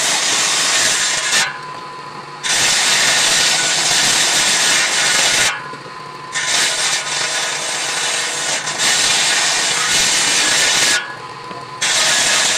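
Table saw cutting mahogany boards: loud, steady cutting noise that drops three times to the lighter steady whine of the blade spinning free between passes.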